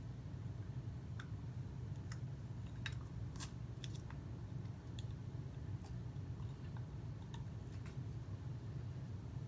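Faint, irregular small clicks and taps from small objects being handled by hand, over a steady low hum.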